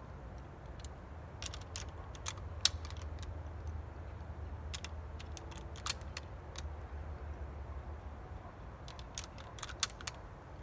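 Scattered metallic clicks and clacks of a 1938 Mosin-Nagant M91/30 bolt-action rifle being loaded by hand, cartridges pushed into its magazine; the sharpest click comes about two and a half seconds in. A low steady rumble runs underneath.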